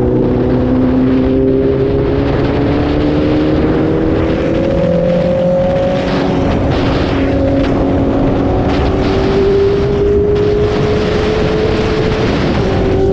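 Sport motorcycle engine pulling hard under acceleration. Its pitch climbs steadily, drops at a gear change about six seconds in, climbs again, and drops at another shift near the end.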